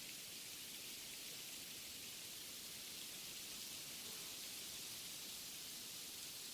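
Wind blowing through forest trees: a steady, high hiss of rustling foliage.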